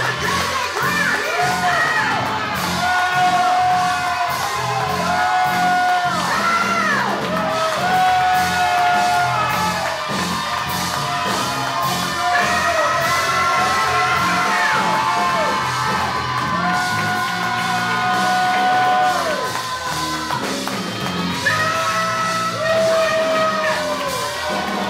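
Live gospel praise music: a band playing over a steady beat, with held melody lines sliding up and down, and singing and shouts from the congregation.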